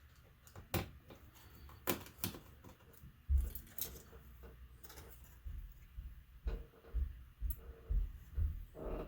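Hands handling the plastic and metal parts of a laptop being taken apart: several sharp clicks in the first few seconds, then a run of dull knocks about twice a second as parts are moved and set down on the bench.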